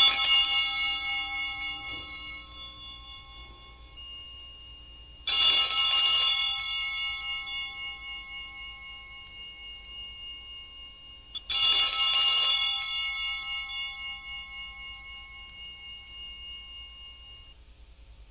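Hand-held cluster of altar (sanctus) bells shaken three times, about six seconds apart, each ring a bright jangle of several high bell tones that dies away slowly.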